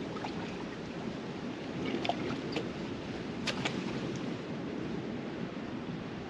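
Steady sound of sea surf washing on the shore, with a few sharp clicks about two and three and a half seconds in.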